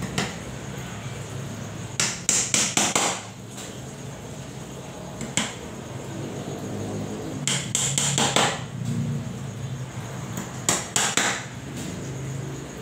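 Claw hammer nailing into a wooden board, in three quick runs of four to six strikes, with a single strike between the first two runs.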